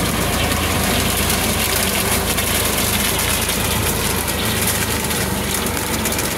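Tractor engine running steadily as it drives a tractor-mounted sugarcane harvester through standing cane. Over it there is a continuous noisy crackle and rattle of cane stalks and leaves being cut and pushed over.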